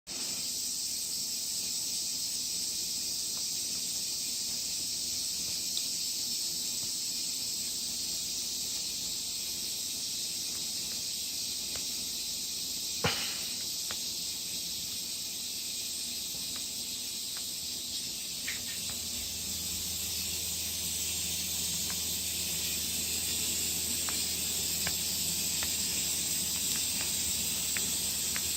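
Aerosol can of Sonax air-conditioner cleaner spraying in a long, steady hiss, with a sharp click about halfway through. A low steady hum joins in about two-thirds of the way through.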